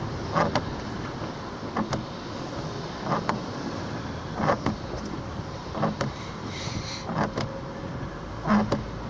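Inside a car in slow traffic: steady engine and road noise, with the windshield wipers thumping at the end of each sweep about every second and a half as they clear falling snow.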